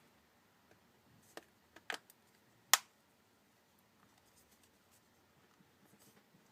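A few small sharp clicks over about a second and a half, the last one the loudest, as the Nokia Lumia 1020's replacement screen assembly is squeezed into the phone's frame and its little tabs snap into place.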